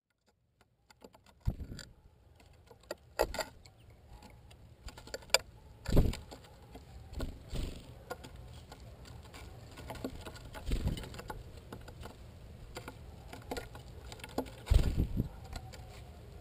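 Irregular sharp taps and clicks of an American goldfinch pecking at sunflower seeds on a wooden feeder tray right beside the microphone, with a few heavier knocks among them.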